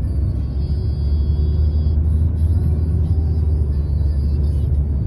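Car in motion heard from inside the cabin: a steady, loud low rumble of engine and tyres on the road.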